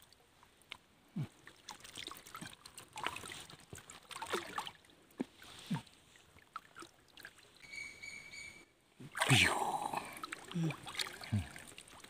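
Water splashing and sloshing at irregular intervals, with scattered small knocks and clicks. The loudest rush of splashing comes about nine seconds in.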